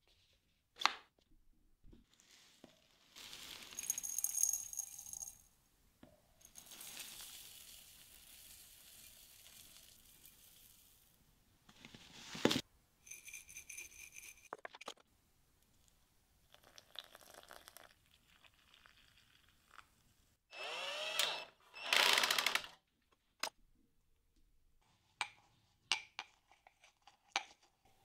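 Intermittent hand and power tool work on metal cabinet parts: short runs of a small power tool with a high whine, a longer stretch of steady rasping noise, and scattered sharp clicks and clinks of metal. The loudest part is two bursts in quick succession near the end.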